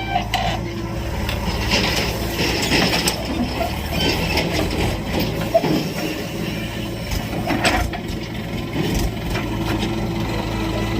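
JCB 3DX backhoe loader's diesel engine running steadily under work, with repeated metallic clanks and scrapes from the bucket and linkage as it handles mud.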